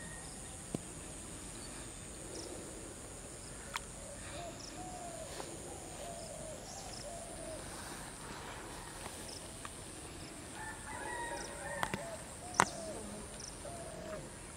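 Birds calling by a pond: from about four seconds in, one bird repeats short, arched calls, about two a second, over a steady high hiss. A few sharp clicks stand out, the loudest a little before the end.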